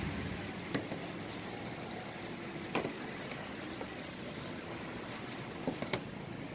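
Steady background hum with a few light, sharp taps: one about a second in, one near three seconds, and two in quick succession near the end.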